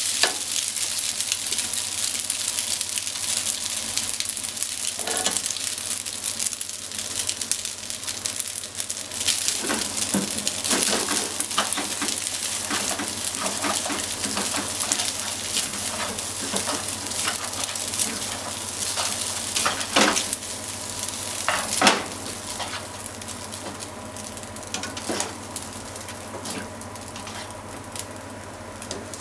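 Spaghetti and sliced pork sizzling in a hot frying pan while being stir-fried and tossed with silicone-tipped tongs, with clicks and scrapes of the tongs in the pan. Two louder knocks come about two-thirds through, and the sizzle dies down toward the end.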